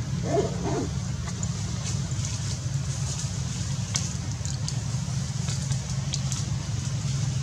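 Steady low rumble throughout, with a brief faint sound about half a second in and scattered faint high ticks.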